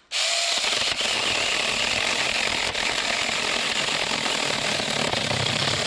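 AOSTOK 6-inch battery-powered mini chainsaw running steadily as its chain cuts through a soaking-wet branch.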